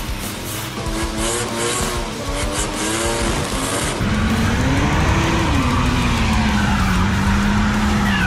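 Car engines revving hard during tyre-smoking burnouts, the spinning rear tyres squealing. For the first four seconds the engine note wavers up and down; after a cut about four seconds in, a louder engine climbs, drops back and then holds a steady note.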